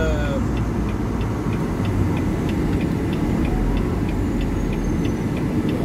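Steady low rumble of a Volvo VNL860's D13 diesel engine heard inside the cab, with a regular light ticking a few times a second over it.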